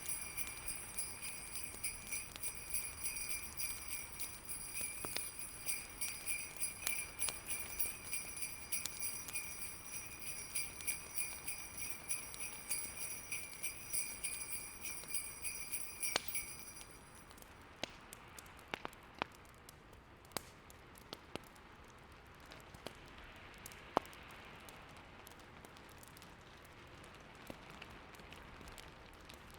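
Sleigh bells jingling in a steady shaking rhythm, stopping about seventeen seconds in. After that a faint steady hiss with scattered sharp crackles and pops from a fireplace.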